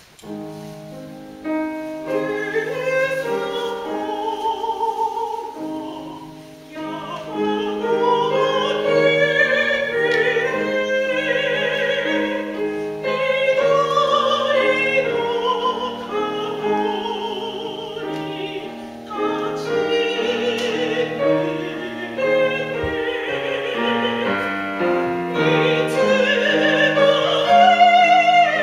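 A female classical singer sings in operatic style with strong vibrato, accompanied by a grand piano. The piano comes in just after the start, and the music runs on with swells and short dips between phrases.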